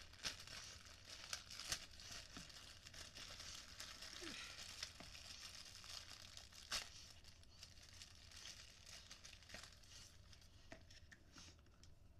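Packaging being handled and opened by hand: faint rustling with scattered sharp clicks, busier in the first half and thinning out towards the end.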